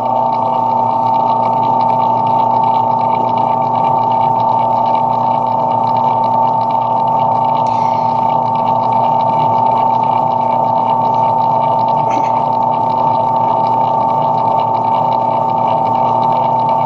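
Lathe running at a steady speed with a constant hum and whine while the end of the part is knurled.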